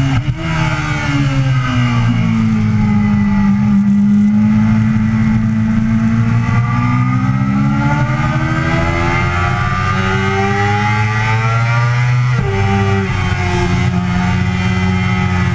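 Yamaha sportbike engine heard from on board at track speed. The revs fall as the bike slows into a corner, then climb steadily as it pulls out under throttle. About twelve seconds in the pitch drops sharply at an upshift and starts climbing again, with wind noise throughout.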